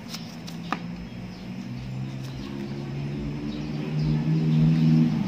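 A paper instruction booklet is handled and leafed through, with a couple of sharp clicks in the first second. From about two seconds in, a low, steady engine hum grows louder.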